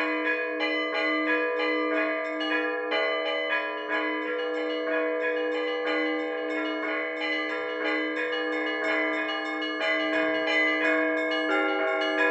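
Orthodox church bells rung as a zvon: small bells struck quickly in a steady pattern, about three to four strikes a second, over the steady ringing of a larger bell.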